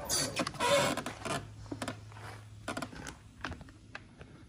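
Hard plastic ATV body panels handled by hand: a rustling scrape for about the first second and a half, then a few scattered light clicks and taps as a cover is fitted.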